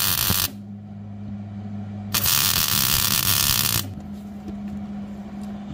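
Arc welding a bead onto a split turbocharger clamp: the arc sizzles in two runs, the first stopping about half a second in and the second starting about two seconds in and lasting under two seconds, over a steady low hum.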